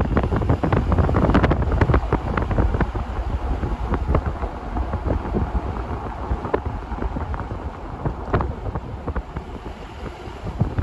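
Wind buffeting the microphone: a gusty low rumble that swells and eases, with frequent crackles, louder in the first two seconds.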